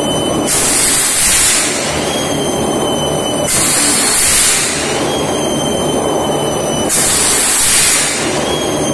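630-ton K8538 hot-forging crank press cycling, with a loud burst of air hiss on each stroke, three times about three and a half seconds apart. A steady high whine and a low mechanical rumble run between the strokes.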